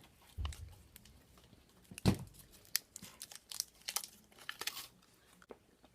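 Crinkling and tearing of a Hi-Chew candy's wrapper as it is unwrapped: scattered crackles, the loudest about two seconds in, with a run of small crackles after it.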